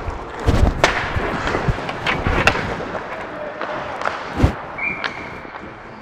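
Ice hockey play heard from the goalie's body mic: sticks, pads and skates knocking several times, then a heavy thud about four and a half seconds in. Just after it, a referee's whistle sounds a short high blast that trails off, stopping play for a penalty.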